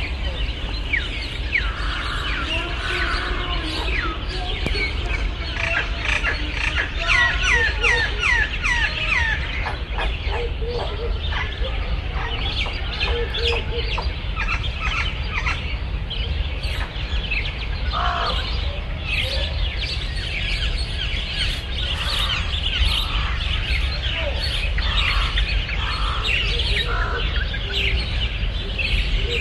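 Many small birds chirping and trilling at once in a dense, overlapping chorus, over a steady low rumble.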